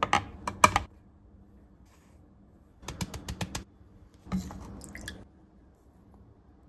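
Light kitchen handling sounds: a few sharp clicks as a digital kitchen scale's button is pressed, a quick run of about six light clicks and taps about three seconds in, then a soft thump and a short rustle as salt is poured from its canister into a measuring spoon on the scale.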